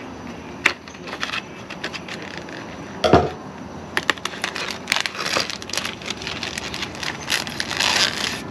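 Plastic film on a tray of raw turkey sausages being cut and peeled open, crinkling and crackling, with a louder knock about three seconds in and a run of quick crackles in the second half.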